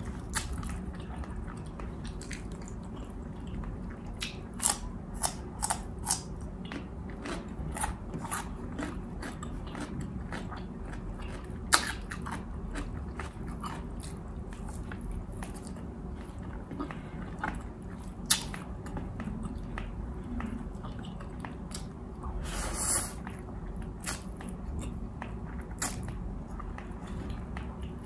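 A person chewing and eating a mouthful of beef steak close to the microphone, with wet mouth clicks and sharp ticks scattered throughout. A brief hissing rush comes near the end.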